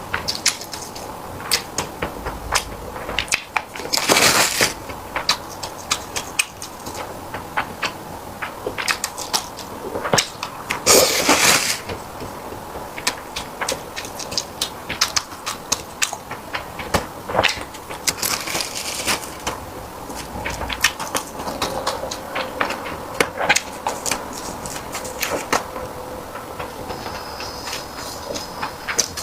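Close-miked eating sounds: chewing with many irregular wet mouth clicks and smacks. Two longer swishing noises come about four seconds in and again around eleven seconds.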